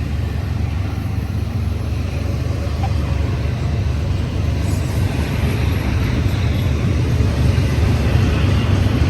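Two diesel-hauled intermodal freight trains passing side by side: a steady, heavy low rumble of the locomotives and rolling cars, with wheel-on-rail noise growing brighter about five seconds in.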